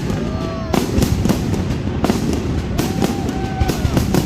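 Fireworks going off in a rapid, irregular string of bangs and crackles over a steady low rumble, with a few short whistling tones that rise and fall.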